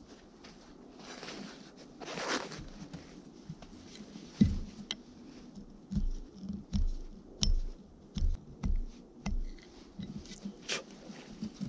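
Flat file rasping along the bit of a Welland Vale True Temper fire axe in strokes, with light clicks of steel on steel and a run of dull knocks through the middle, the loudest a little over four seconds in.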